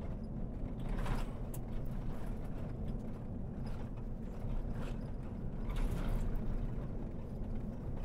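Steady low rumble of a vehicle driving on a dirt road, heard from inside the cab, with a few light rattles and clicks now and then.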